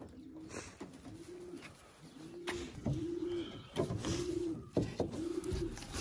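Racing pigeons cooing over and over, a run of low coos that each rise and fall, about one a second, with a few light knocks among them.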